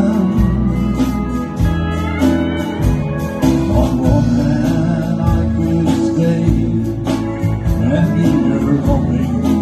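Live country band playing through a PA: drums and bass under acoustic and electric guitars, with a pedal steel guitar.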